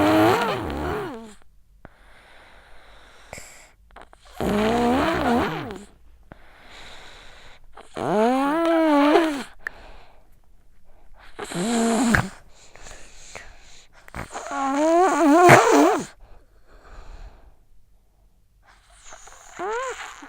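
A sick child snoring in her sleep, six loud breaths about every four seconds. Each carries a pitched, wheezy tone that bends up and down.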